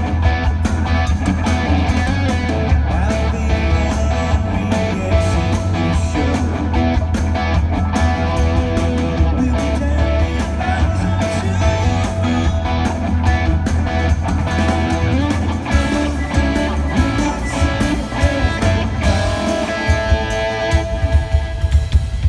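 Rock band playing live at a sound check, with electric guitar out front over bass and drums and a heavy low end.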